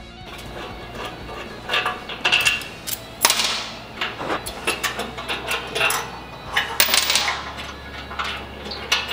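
Metal clinks and clatter of a hand tool on the front fender bolts and fork-leg fender mounts of a Harley-Davidson bagger as the fender bolts are taken out. It is a series of irregular sharp knocks, each with a short metallic ring, loudest about 3 s and 7 s in.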